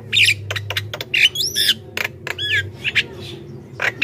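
Javan myna chattering: a quick, busy string of harsh squawks and sharp clicks mixed with whistled notes that glide up and down in pitch.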